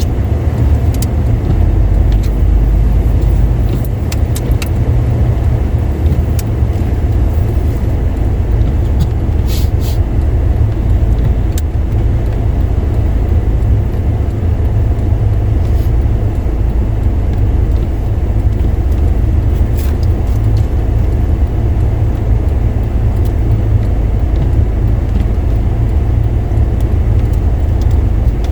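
Car driving on wet, slushy roads: a steady low rumble of engine and tyre noise, with a few scattered short clicks.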